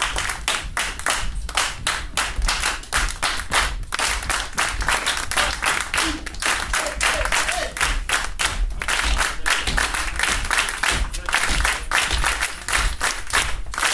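Several tap dancers hand-clapping a fast, tight rhythm together as body percussion, with low thuds under the claps.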